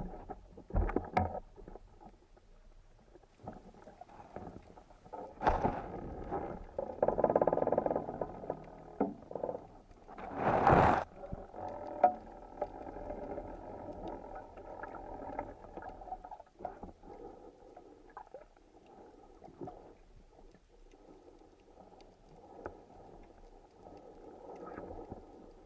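Muffled underwater noise through a camera housing, broken by a few short whooshing rushes of bubbles or breath, the loudest about eleven seconds in, and a sharp click just after.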